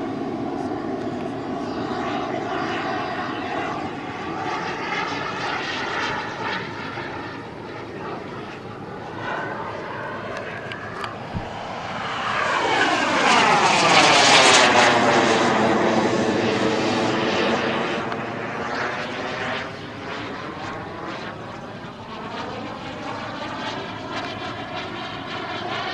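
JetCat P-220RXi turbine of a large scale model Fiat G.91 jet in flight, giving a steady jet whine and rush. About twelve seconds in it swells to its loudest with a sweeping whoosh as the jet passes, then fades as it flies away.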